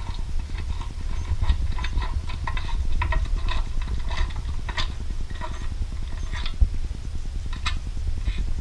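Scattered metallic clicks and taps from a 7/8 inch deep well socket and the lock's gold nut as the nut is worked loose and spun off by hand, over a steady low rumble.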